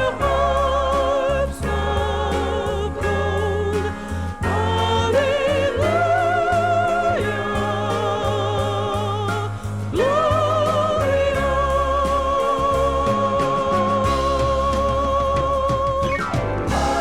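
Gospel music: a singer holds long notes with vibrato over a band with a steady bass. The longest note is held for about five seconds before it slides off near the end.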